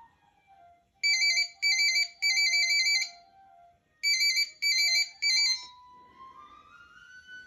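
Motorola StarTAC flip phone ringing for an incoming AMPS call: a fast-warbling electronic trill in two groups of three short bursts, stopping shortly before the call shows as connected. Soft background music plays underneath, rising in pitch near the end.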